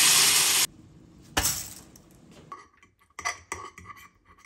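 Loud sizzling of tomatoes and onions frying in a stainless steel pan, cut off suddenly under a second in. Then a single knock, and several light clinks of a fork against a ceramic plate while twirling spaghetti.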